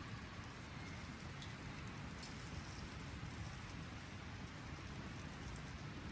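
Wood fire crackling: a steady hiss with a few faint pops.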